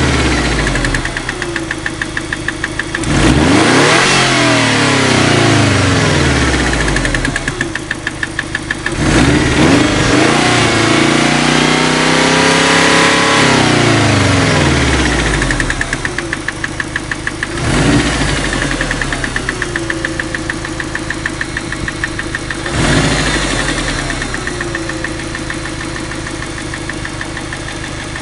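2.0-litre turbocharged car engine idling with a regular knock, blipped several times and given one longer rev up and back down in the middle. The knock is the fault the owner is showing.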